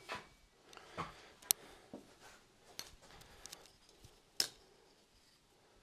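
Faint handling of a tape measure on a work surface: scattered light taps and scrapes, with two sharp clicks about one and a half and four and a half seconds in, the second the loudest.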